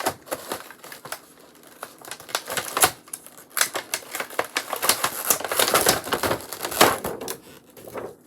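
Tape being peeled off a plastic slime-kit package, with the plastic crackling in a rapid, irregular run of clicks that is thickest through the middle.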